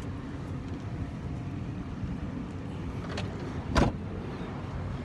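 Steady low outdoor background rumble, then about four seconds in a single sharp thud as the 2017 Toyota 4Runner's rear liftgate is shut.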